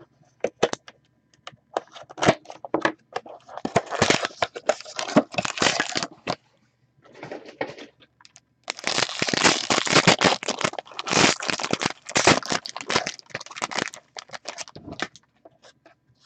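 A trading card box and its foil pack being opened by hand: crinkling and tearing of the wrapper in two long stretches, with scattered clicks of handling between and around them.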